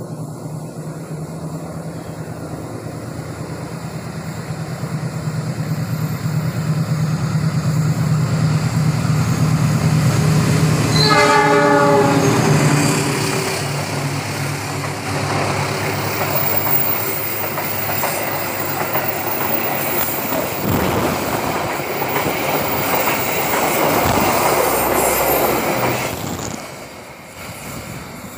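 A CC 206 diesel-electric locomotive approaches with its engine running, getting louder until it passes about eleven seconds in. The passenger coaches then roll by with wheel clatter and a faint high squeal of wheels on the sharp curve, and the sound drops away near the end as the train leaves.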